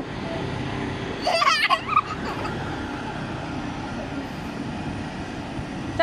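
A short high-pitched vocal sound with wavering pitch about a second in, followed by a sharp click, over a steady background hum of outdoor noise.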